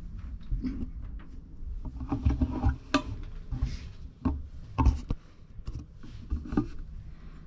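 A string of irregular knocks and soft thumps, the sharpest about three seconds in and about five seconds in, over a low rumble and rustle.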